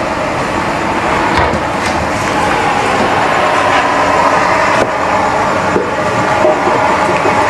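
A steady mechanical din, with a cleaver knocking a few separate times on a thick round wooden chopping block as small bulbs are cut.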